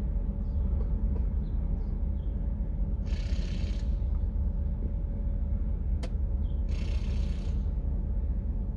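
Steady low rumble and hum of an idling vehicle engine, heard from inside the cab. Two short bursts of hiss come about three and seven seconds in, with a single sharp click about six seconds in.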